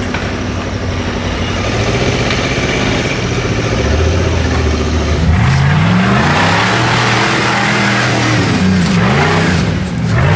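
Rock race buggy's engine working under load on a rocky hill climb. From about five seconds in it is revved hard up and down again and again, dropping briefly just before the end.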